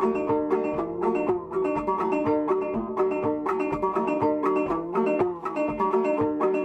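Background music: a banjo picking a quick tune, with no singing.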